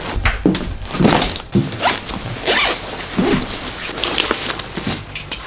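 A school bag's zipper being pulled open in several short rasps, with handling of the bag and its contents.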